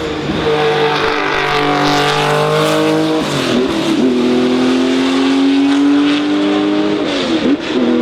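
Porsche racing car accelerating hard, its engine note climbing steadily and dropping at two upshifts, about three seconds in and again about seven seconds in.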